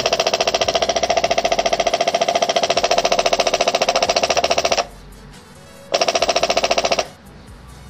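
12-volt electric fuel pump running on battery power during a bench test, with no hoses fitted: a fast, even ticking chatter that shows the pump works. It cuts out about five seconds in, runs again for about a second, stops, and starts again near the end.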